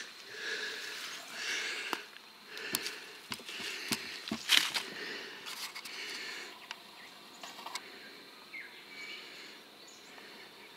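A person breathing hard close to the microphone, a breath about every second and a half, fading toward the end. A few sharp clicks and ticks come near the middle.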